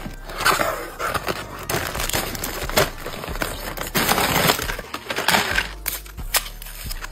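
Crinkling and rustling of a thin plastic shipping mailer bag being opened and handled, full of sharp crackles; near the end a small card-backed plastic package is handled.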